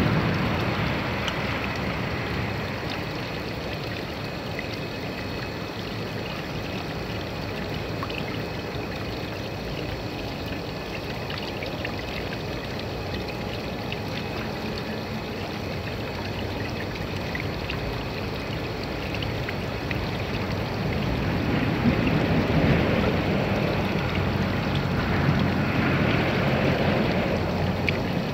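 Pond water splashing and trickling steadily, a little louder in the last several seconds.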